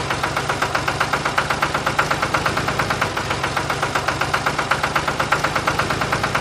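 Engine chugging steadily at about eight even beats a second, with a low hum underneath, like a small tractor engine running.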